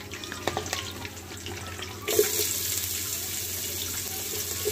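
Spices frying quietly in hot oil with a few light clicks, then sliced onions go into the pot about two seconds in and set off a loud, steady sizzle.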